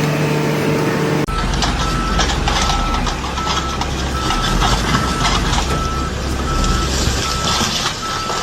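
Heavy vehicle's back-up alarm beeping steadily, about two beeps a second, starting about a second in, over the loud running of its engine.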